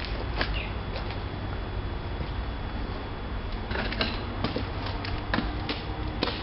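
Footsteps crunching on a rubble-strewn floor: scattered short scrapes and knocks, a few in the first second and then more often, about two a second, from a few seconds in, over a steady low background hiss.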